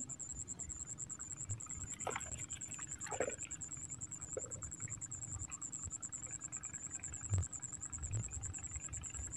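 Steady, high-pitched pulsing insect trill over a low rumble, with a few brief rustles early on and a single sharp knock about seven seconds in.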